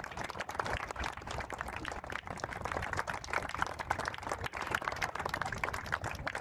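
A small group of people applauding, many hand claps overlapping in a steady patter.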